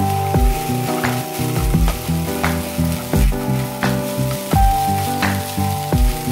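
Fried rice sizzling in a hot nonstick pan as it is stirred with a spatula, under background music with a steady beat.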